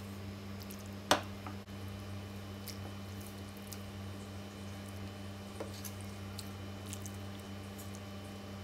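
A steady low hum under faint room noise, with one sharp click about a second in and a few faint ticks afterwards.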